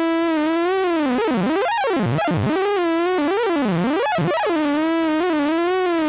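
A single held note from a buzzy sawtooth synthesizer patch in Steinberg HALion 5, with filter and tube-drive distortion. Its pitch is steered by a 32-step step modulator and wavers up and down as the modulation depth is raised. The tone starts steady, swoops down deeply twice, then settles into a narrower, jittery warble.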